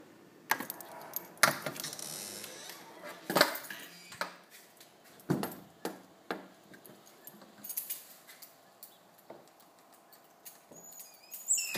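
Scattered clicks and knocks, a second or two apart, over a faint steady hum that grows plain about halfway in: a fluorescent light with a bad bulb or ballast, which the owner is not sure of.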